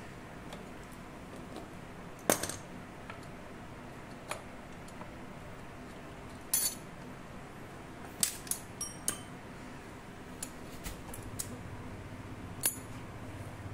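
About ten sharp metallic clinks and taps, loudest about two seconds in and clustered around eight to nine seconds, as a Honda Moove scooter's stator coil and crankshaft position sensor assembly is handled and worked out of the engine's alternator housing.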